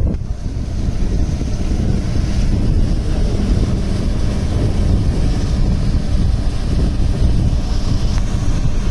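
Wind buffeting the microphone in a loud, steady rumble, with a tractor engine running under load as it ploughs a waterlogged paddy field.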